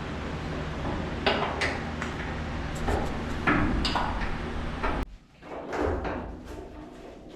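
Irregular metal clanks and scrapes of a hand wrench working the door hinge bolts on a 1973 Ford F100, over a steady low hum. The sound cuts off suddenly about five seconds in, leaving fainter scraping.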